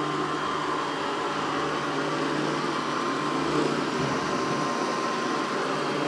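SwitchBot K10+ Pro mini robot vacuum running on its Standard suction setting: a steady motor and fan hum with a constant low tone and a faint thin whine.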